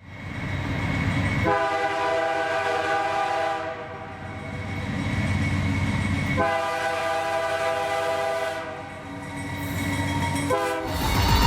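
Diesel locomotive's multi-chime air horn sounding two long blasts and a short one over the low rumble of the passing train, the opening of the long-long-short-long grade-crossing signal.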